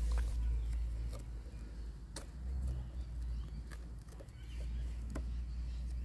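Small knife prying and cutting into stingless-bee brood and wood inside an opened log hive, giving a few scattered sharp clicks and crackles over a steady low rumble.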